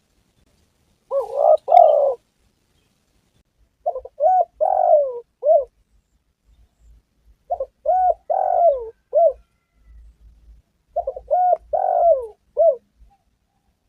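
Spotted dove (tekukur) cooing: four phrases a few seconds apart, each a run of several short coo notes.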